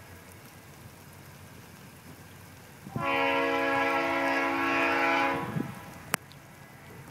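Norfolk Southern locomotive horn sounding one long blast of about two and a half seconds, starting about three seconds in, from a train approaching in the distance. A single sharp click follows shortly after the horn stops.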